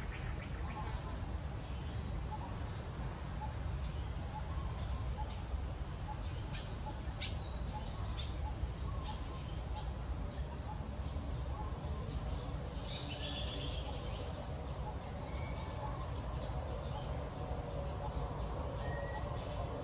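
Insects trilling steadily at a high pitch over a low rumble, with scattered clicks and a few short bird chirps.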